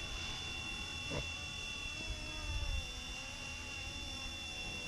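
Flywing FW450 electric RC helicopter in flight, its motor and rotors giving a steady high whine that wavers slightly in pitch, over a low rumble.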